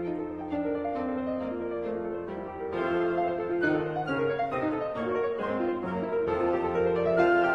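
Background piano music: a melody of steady, evenly paced notes over held lower notes.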